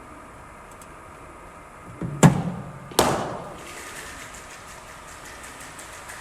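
A cricket bowling machine fires a ball with a thump, and about three quarters of a second later the bat meets it with a sharp crack that echoes and dies away, over a faint steady hum.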